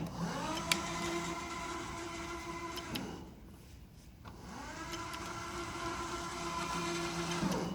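Drive motors of a remote-controlled tracked robot chassis running in two stretches of about three seconds each, a steady whine that rises in pitch as it starts and drops as it stops, with a short pause in between.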